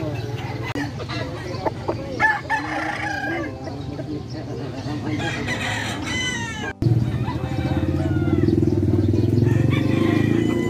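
Roosters crowing, twice, over a background of market noise. A little before seven seconds in, the sound cuts off abruptly and gives way to a louder, steady background din.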